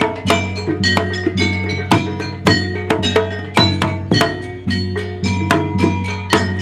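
Javanese gamelan music for a jaranan performance: struck metal-keyed instruments ringing over a steady, quick beat of drum strokes.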